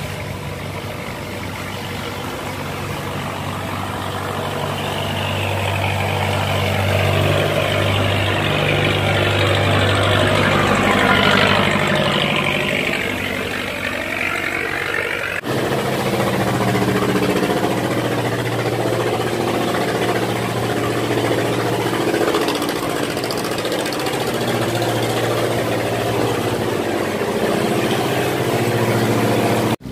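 Boat engines running steadily as boats pass close through the sluice gate, over the rush of water. One engine grows louder as its boat draws near, peaking about eleven seconds in. About halfway through the sound changes abruptly to a different steady engine hum.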